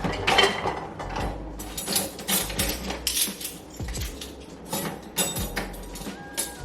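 Kitchen clatter of dishes and cutlery: a run of irregular sharp knocks and clinks.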